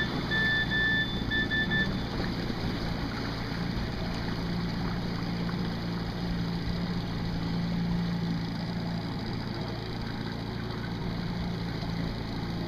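An engine running steadily with a low hum, with a few short high beeps in the first two seconds.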